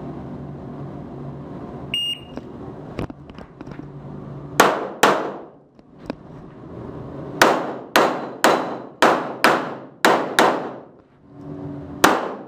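A short electronic beep, the shot timer's start signal, then 9x19 mm pistol shots from an STI Edge: a pair, a pause, a fast string of eight, and one more shot near the end, each with a ringing echo.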